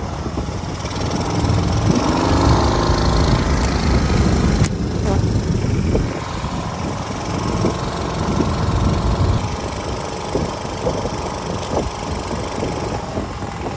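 A small boat's engine running steadily as the boat moves along the river.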